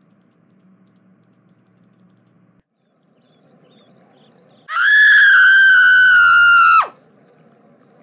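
A girl's high-pitched scream, held for about two seconds and ending in a sharp downward drop.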